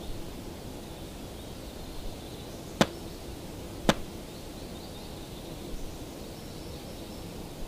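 Steady outdoor forest ambience, an even hiss, broken by two sharp clicks about a second apart near the middle.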